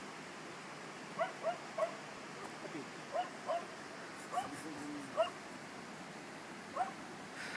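An animal's short rising yips, about nine of them at irregular intervals over a steady outdoor hiss.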